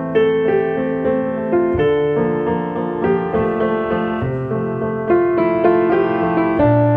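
Background music: a piano or electric-piano melody with chords, notes struck about every half second.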